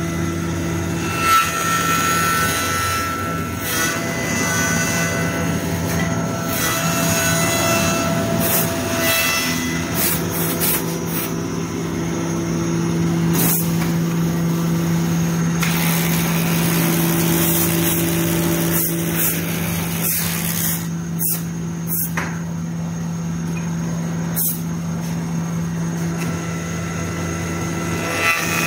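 Automatic CNC wood lathe running with a steady motor hum while its cutter turns a wooden blank into a brush handle. A string of sharp clicks comes in the second half.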